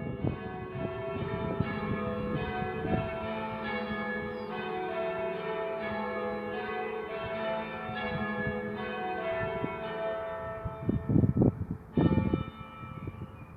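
The back four bells of a church tower ring full-circle, English-style, in rounds and call changes, each bell striking in turn with long ringing tones. A few loud bursts of noise come near the end.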